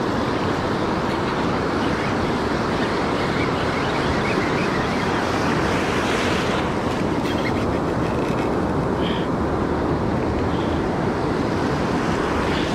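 Ocean surf washing in around the shallows, with wind on the microphone: a steady rushing noise.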